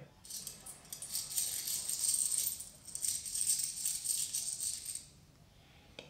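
Coins being tossed and rattled in a hand, a sound-effect recording, jingling for about five seconds and then stopping.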